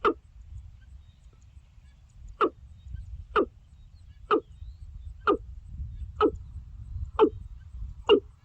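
Watercock calling: a series of short, clipped notes, one at the start, then after a pause about one a second. The calls sit over a steady low rumble of background noise.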